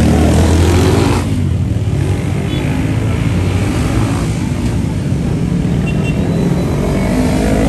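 Motorcycle engines revving as riders accelerate away from a race start one after another. One bike passes loudly in the first second, its pitch falling as it goes by, and another revs up with a rising pitch near the end.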